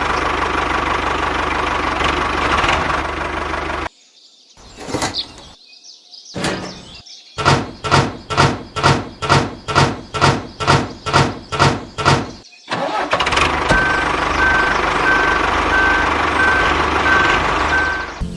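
Vehicle engine running, cut off after about four seconds; after a quieter gap comes a run of evenly spaced knocks, roughly two to three a second. The engine noise returns with a steady on-off beeping over it near the end.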